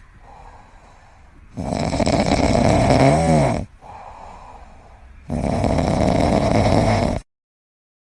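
Loud snoring: two long snores about two seconds each with quieter breaths between, the first ending in a whistling tone that rises and falls. The sound cuts off suddenly near the end.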